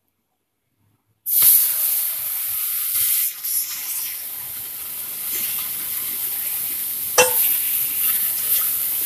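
Water poured into a hot pan of roasted semolina (rava), sizzling and hissing loudly as it hits the pan; the sizzle starts suddenly a little over a second in after silence. A single sharp knock about seven seconds in.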